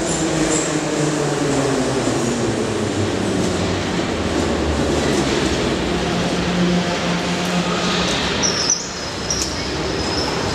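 Moscow Metro train braking into the station: the motor whine glides down in pitch over the first few seconds, over a steady rumble and rattle from the cars. Near the end the rumble drops and a high whistling tone sounds as the train stands with its doors opening.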